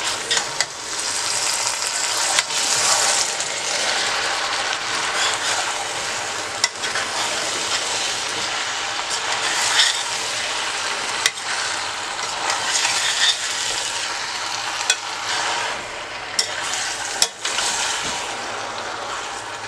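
Long metal spoon stirring canned beans into browned ground beef in a stainless steel pot: a steady wet churning noise with a scatter of sharp clinks where the spoon strikes the pot.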